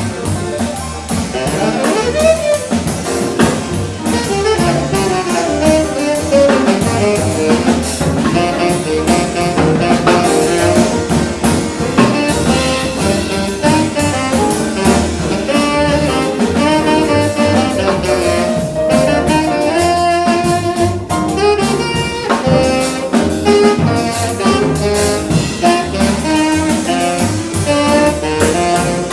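Latin jazz quartet playing live: saxophone over piano, double bass and drum kit.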